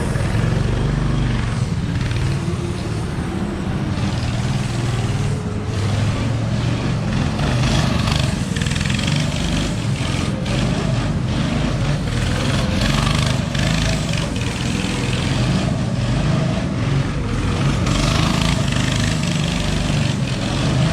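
Go-kart's small engine running as the kart is driven around in circles, its pitch and level rising and falling as the throttle is fed on and off.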